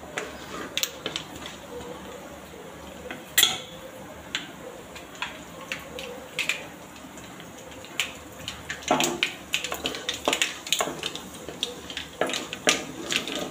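Mustard seeds popping in hot oil in an aluminium kadai while a spatula stirs and knocks against the pan: irregular sharp clicks over a faint sizzle, coming thicker in the last few seconds.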